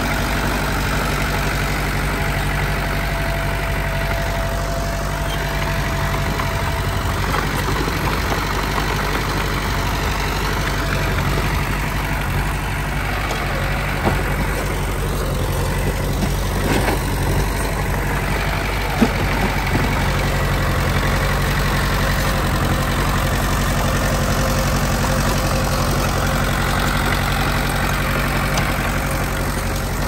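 Komatsu D20P bulldozer's diesel engine running steadily, with a few short knocks about halfway through.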